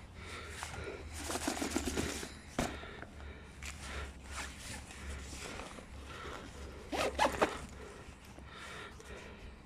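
Backpack zipper being pulled in several short runs, with rustling of the bag's fabric; the loudest zip comes about seven seconds in.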